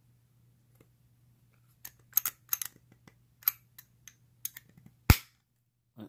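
Scattered light metallic clicks and taps from a vintage Corbin USN padlock being handled, then one sharp, loud metallic click about five seconds in.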